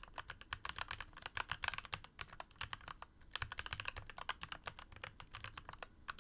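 Mechanical keyboard typed on quickly, fitted with thin-walled (about 1 to 1.2 mm) laser-etched keycaps that give a bright, clacky sound. The keystrokes come in fast runs with a couple of short pauses.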